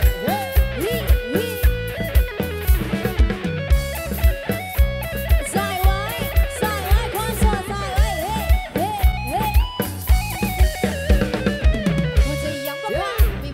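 Live band playing an instrumental passage: an electric guitar carries a lead melody with many bent notes, over a steady beat on a drum kit and electric bass.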